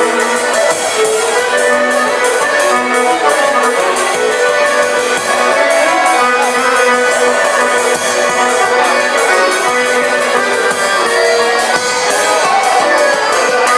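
An accordion ensemble playing a folk tune together, including a chromatic button accordion and a piano accordion, over a steady percussion beat.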